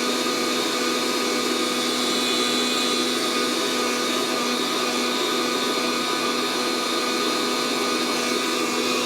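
Fresh Roast SR 800 hot-air coffee roaster running steadily, its fan blowing hot air with a constant motor hum. The beans are browning, before first crack.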